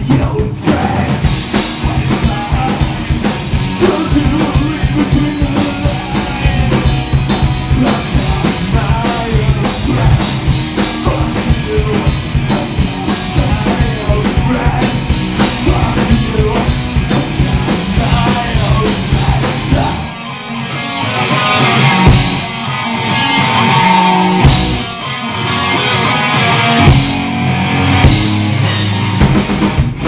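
Live rock band playing loud: electric guitars, bass guitar and drum kit with sung vocals. About two-thirds through, the low end drops away for several seconds, leaving guitar and scattered drum hits, then the full band comes back in near the end.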